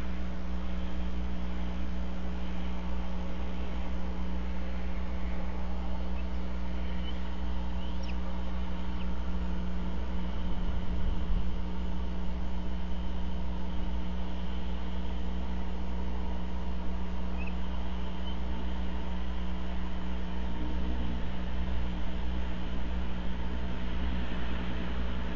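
Steady low hum made of several fixed tones under an even hiss, unchanging throughout, with a few faint, short, high chirps.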